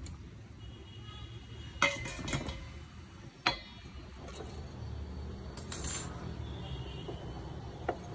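Sharp metal clinks and knocks as a wet grinder's stone roller assembly, with its metal holder, is fitted into the stainless steel drum: a clink about two seconds in, another a second and a half later, and one near the end.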